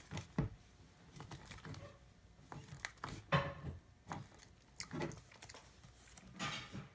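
Faint, scattered clicks, knocks and soft squelches of a lotion bottle being handled and squeezed into a slime bowl.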